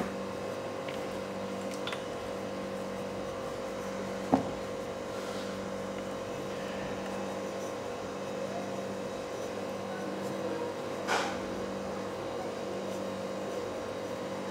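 Hands rubbing and turning chicken pieces in dry flour in a steel bowl, a soft rustle over a steady background hum. A single sharp knock about four seconds in, and a brief scuff about eleven seconds in.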